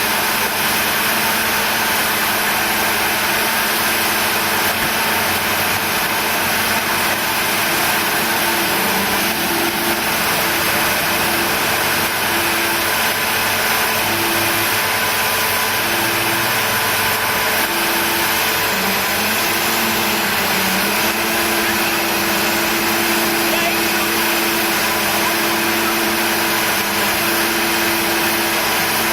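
Steady engine running from the machinery of a continuous welded rail train, with a hum that comes and goes beneath it.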